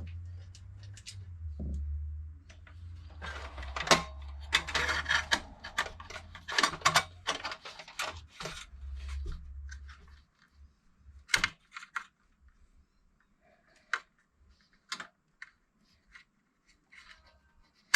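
Small plastic and metal clicks, scrapes and rattles of desktop computer parts being handled, thick for several seconds and then only an occasional tap. A low steady hum underneath stops about ten seconds in.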